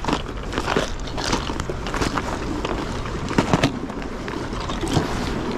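Irregular clicking and clattering of fishing lures and plastic tackle cases being rummaged through, over a steady low rumble, with a few sharper clicks about three and a half seconds in.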